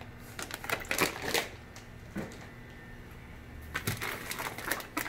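Plastic fish-shipping bags crinkling and rustling as they are handled and pulled from a cardboard box. The crackling comes in two spells, near the start and near the end, with a quieter stretch between.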